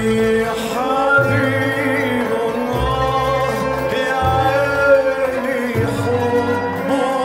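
A male singer sings Middle Eastern music with a live orchestra of violins and flutes behind him.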